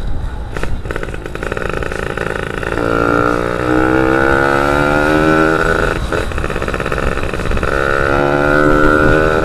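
Yamaha F1ZR two-stroke single-cylinder engine pulling under way, its pitch climbing steadily as the bike accelerates. About six seconds in it breaks off briefly, like a gear change, then pulls again.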